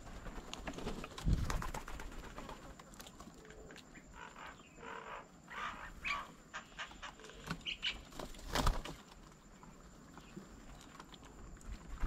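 Birds at a bird table: two dull knocks, a little over a second in and again near the end, with a string of short chirping calls in between.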